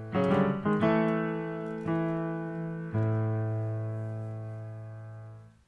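Intro music on a piano-like keyboard: a quick run of notes, then sustained chords struck about once a second. The last chord rings longer and fades out.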